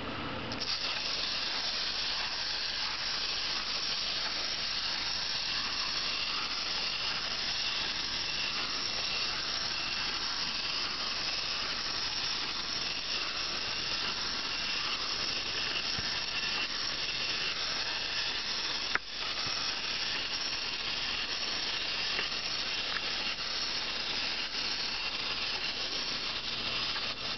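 Clockwork spring motor of a 1984 wind-up crawling baby Donald Duck toy running as the toy crawls, a steady high-pitched whirr from its gear train. There is a single sharp click about two-thirds of the way through.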